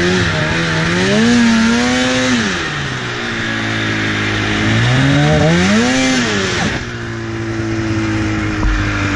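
2004 Polaris RMK 800 snowmobile's two-stroke twin engine revved hard twice, its pitch climbing and falling with each throttle surge. About seven seconds in it drops off to a lower, slowly sagging note as the sled bogs down and gets stuck in deep snow.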